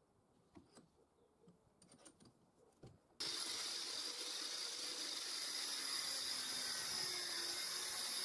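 A few light metal clicks as a hex coupling nut is set in a steel bench vise, then about three seconds in an angle grinder with a thin cut-off disc suddenly comes in at full speed, a loud steady high whine and hiss as the disc cuts into the steel nut, throwing sparks.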